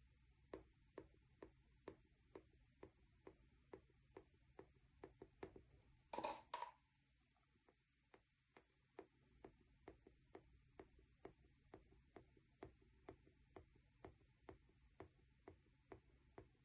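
Faint, evenly spaced light taps, about two to three a second, with one louder brief scuffing noise about six seconds in.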